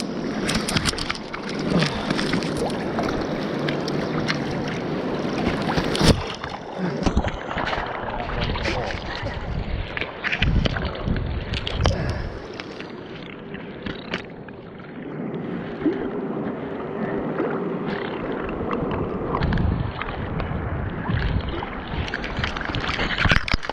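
Fast river water rushing and sloshing against shore rocks, with irregular splashes and knocks as a large Arctic char is handled in a landing net in the shallows.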